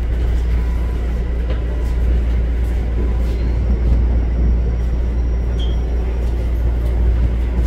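Toronto subway train in motion: a steady low rumble with rail noise, unbroken throughout.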